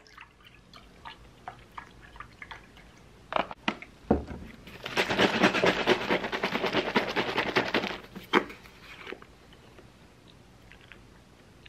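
Milk cartons handled at a table: small clicks and knocks, a low thud about four seconds in, then about three seconds of dense liquid rushing and sloshing, and a few more clicks near the end.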